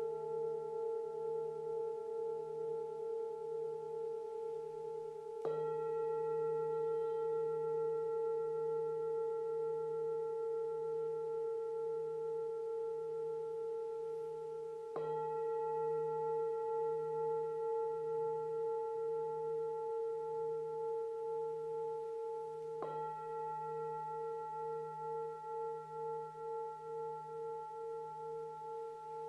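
Metal singing bowls struck with a wooden striker three times, about every eight or nine seconds. Each strike renews a long, overlapping ring of several steady tones that throb slowly as they sustain.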